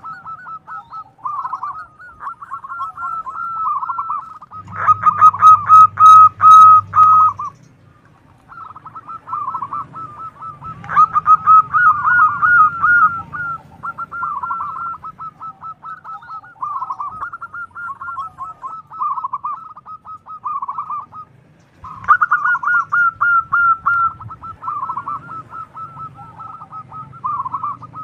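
Zebra dove (Indonesian local perkutut) cooing in long runs of quick staccato notes, with louder bouts about five, eleven and twenty-two seconds in.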